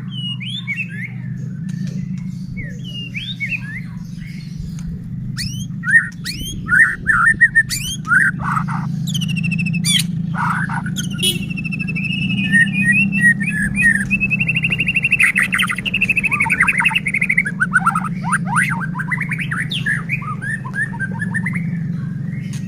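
White-rumped shama (murai batu) singing a long, varied song of whistles and fast trills, with sharp clicking notes about a third of the way in, over a steady low hum.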